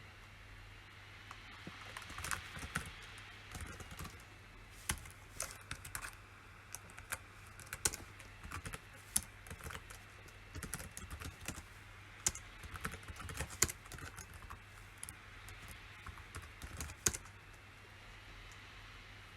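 Typing on a PC keyboard: irregular runs of key clicks with short pauses, starting about two seconds in and stopping a couple of seconds before the end.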